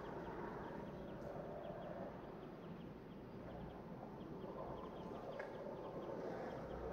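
Skateboard wheels rolling over rough asphalt, a faint, uneven rumble that swells and fades as the board moves. A soft, rapid ticking runs underneath, with a couple of light clicks.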